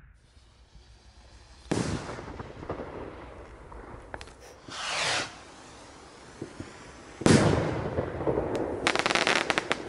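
Blackboxx Goldjungs premium firework rockets: one bursts with a bang about two seconds in, a rising whoosh follows around five seconds, and another bursts with the loudest bang a little after seven seconds, trailed by a quick run of crackles near the end.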